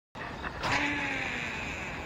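A single bleat-like animal call lasting about a second, falling slightly in pitch as it fades, preceded by a short click.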